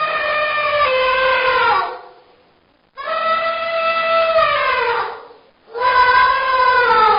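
Elephant trumpeting: three long, loud calls with short gaps between, each holding a steady pitch and then dropping away at its end.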